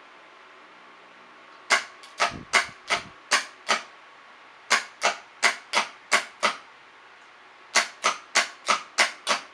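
Car starter motor and solenoid on the bench, clicking as a jumper cable is touched to the terminal to power it: three runs of about six sharp clicks each, roughly three a second. Each click is the starter kicking in, a sign that it works.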